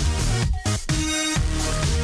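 Electronic dance music with a steady beat and synth tones that glide down in pitch.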